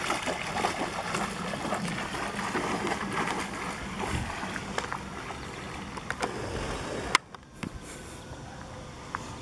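Water splashing and sloshing as a dog wades into a lake and swims off. About seven seconds in there is a sharp knock, after which the water sounds fall to a quieter background.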